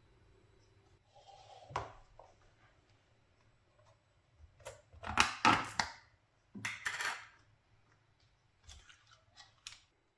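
Kitchenware being handled while preparing food: a knock about two seconds in, then a cluster of sharp clinks and clatters about halfway through, and a few lighter taps near the end.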